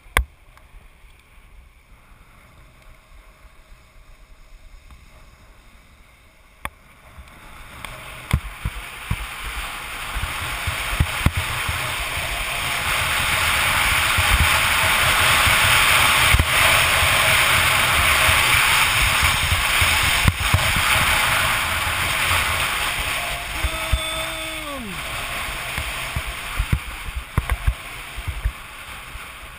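Skis hissing and scraping over groomed snow, with wind rushing and buffeting the camera microphone as speed builds. It is quiet at first, swells to its loudest mid-run, then eases. Near the end there is a brief pitched call that falls away.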